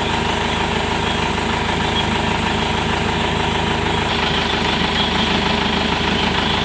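Jeep engine idling steadily.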